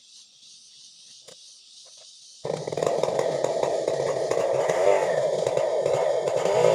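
Chainsaw running loudly, coming in suddenly about two and a half seconds in after a faint hiss with a few clicks.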